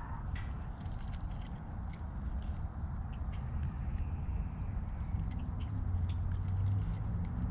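Scattered light rustling and ticking in the trees, which the angler takes for an iguana moving about overhead. A short high bird whistle sounds about a second in, and a longer steady one follows a second later.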